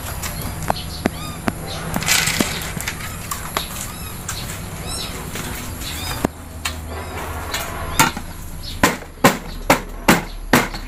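Clatter and handling noise, ending in a run of about seven sharp knocks over the last three seconds as a metal tin is handled.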